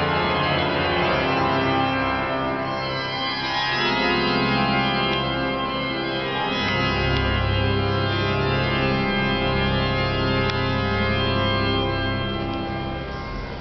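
Church pipe organ playing loud, sustained full chords, the bass notes changing about 4 and 7 seconds in.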